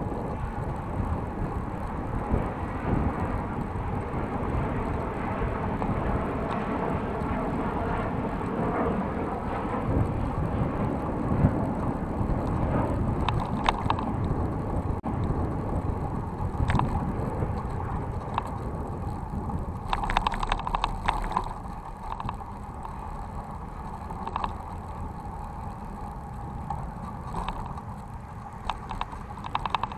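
City bike riding along a paved cycle path: steady tyre and wind rumble, with the bike's light rattles and clicks now and then, a bunch of them about two-thirds of the way through. The rumble eases somewhat in the last third.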